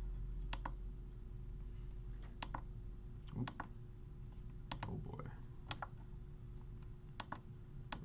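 Sharp plastic clicks of a RadioMaster TX12 radio transmitter's buttons being pressed to step through its menus, about a dozen, some single and some in quick pairs, over a faint steady hum.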